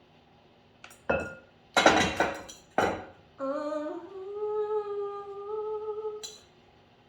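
A few short, loud clatters, then a woman humming one held note that rises slightly and then stays steady for about three seconds.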